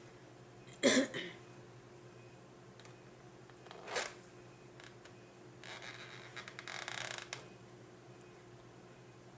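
Close-miked eating and food handling. There is a loud, short crackly mouth sound about a second in and a smaller one about four seconds in. Then comes about a second and a half of crinkly rustling with small clicks.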